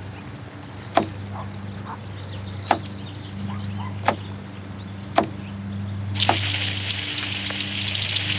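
Kitchen knife chopping a cucumber on a wooden cutting board: five sharp chops about a second or more apart over a low steady hum. About six seconds in, a loud steady hiss begins.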